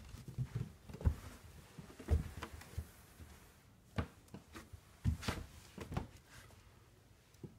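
A few scattered soft thumps and clicks on a wooden floor, spaced irregularly about a second apart.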